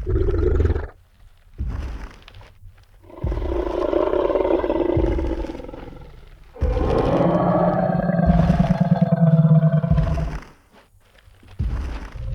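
Sound-effect Tyrannosaurus rex roars: a series of deep roars with short gaps between them. A long roar starts about three seconds in and trails off. The loudest and longest roar, with a low growling undertone, comes at about six and a half seconds and stops around ten seconds.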